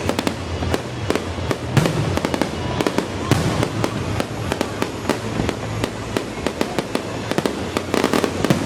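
Fireworks crackling: a dense, continuous run of rapid sharp pops and bangs, thickest near the end.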